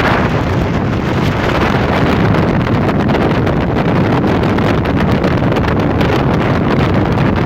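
Sportster motorboat running fast: steady engine noise and rushing water from the hull and wake, with heavy wind buffeting on the microphone.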